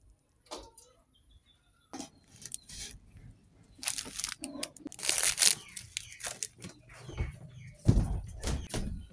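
Irregular crinkling and rustling of a foil instant-noodle lid and packaging being handled, with small knocks on a wooden table, loudest about halfway through; a heavy thump near the end.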